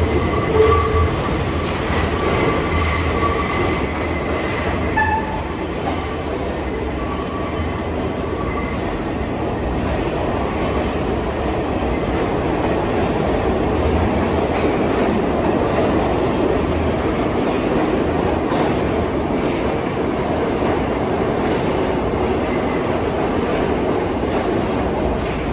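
New York City subway train running through the station, its wheels squealing in thin high tones over the first several seconds, which then give way to a steady rumble of running noise.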